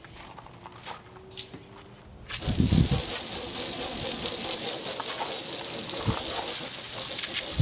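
Pressurized water spraying from the Road Shower's trigger hose nozzle, starting suddenly about two seconds in as a steady hiss, the jet striking the car's side window.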